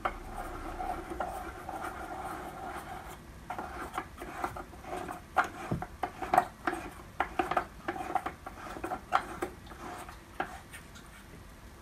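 Knee-brake lever on a drill press being turned by hand in its threaded hole: metal rubbing with many short clicks and taps, thickest in the middle of the stretch, over a faint steady hum.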